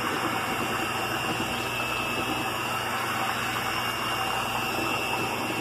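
Corded electric hand mixer running steadily in a stainless steel stockpot, beating very ripe mashed bananas down to a smooth pulp.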